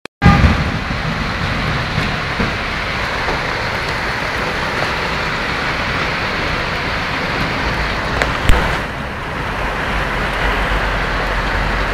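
Hailstorm: hail and rain falling steadily on the street and rooftops, a dense continuous hiss with scattered faint clicks. A single sharp knock comes about eight and a half seconds in.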